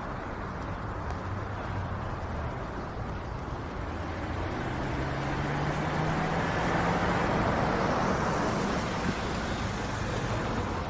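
Road traffic: a motor vehicle passes close by over a steady traffic hum. It grows loudest about six to eight seconds in, its low engine note rising as it nears.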